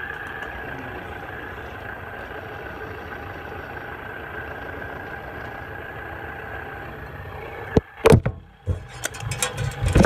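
Ceiling fan motor running steadily at high speed, a hum with a faint high whine, its bearings wanting a little attention. Near the end come several loud knocks and clatter.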